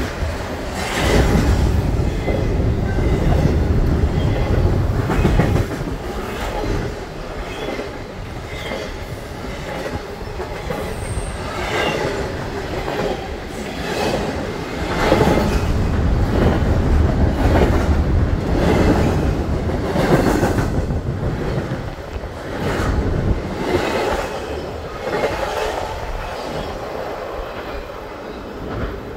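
Double-stacked CSX intermodal container train passing: a steady low rumble of wheels on the rails, with irregular clacks every second or two. It eases off near the end as the last car goes by.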